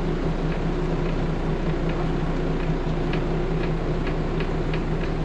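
Steady hum of a 1999 Carver 504 motor yacht's engines under way, heard from inside the enclosed helm, with faint light ticks every half second or so.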